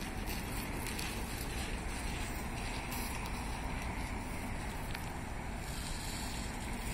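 Low engine and tyre noise of a small sedan manoeuvring at walking pace, mixed with a steady wind rush on the microphone.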